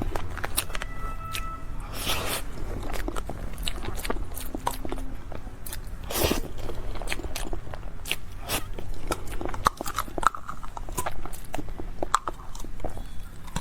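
Close-miked eating: a person biting and chewing, with many sharp crunches and clicks and an occasional louder crunch.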